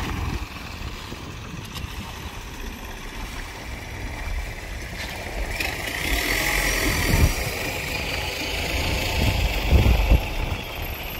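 An engine running steadily, with a rough low rumble.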